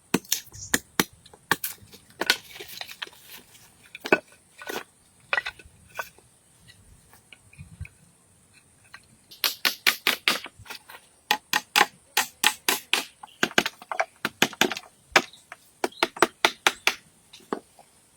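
Hand tool chopping wood: a long series of sharp knocks, scattered at first, then quick runs of several strikes a second in the second half.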